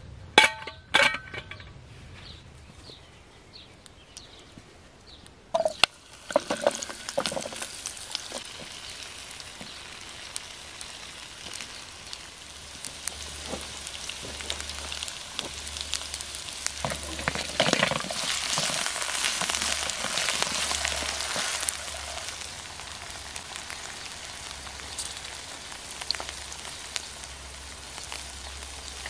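Diced potatoes sizzling as they fry in oil in a pan on a wood-burning camp stove. A couple of metal clanks near the start come as the pan is set on the stove, and the sizzling starts suddenly about six seconds in and grows louder around the middle.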